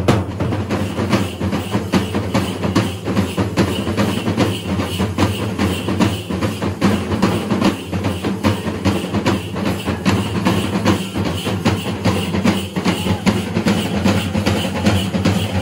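Fast, continuous drumming of a Kerala temple-festival percussion ensemble, dense strokes running on without a break.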